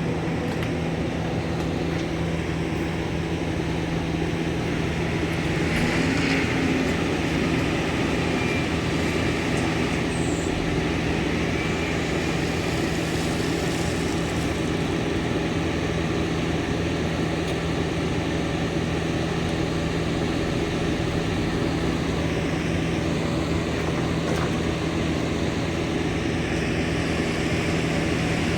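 Heavy diesel engine running steadily at constant speed, a continuous drone with a steady low hum.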